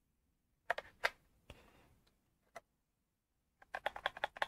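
A few sharp clicks and taps from hands handling small tools and parts on a workbench, then, near the end, a quick run of small clicks, several a second.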